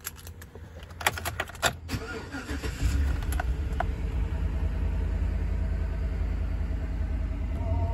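A few clicks from the key and ignition, then the 2012 Chevy Avalanche's 5.3-litre V8 cranks and starts about two seconds in and settles into a steady idle.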